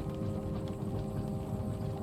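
Inside a moving train carriage: the steady low rumble of the train running, with a constant hum over it and faint light ticks.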